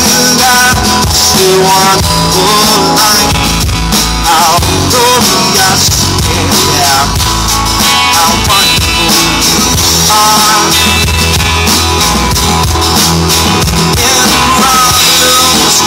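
Live rock band playing loudly through a PA: electric and acoustic guitars over a drum kit, with bent, wavering lead notes.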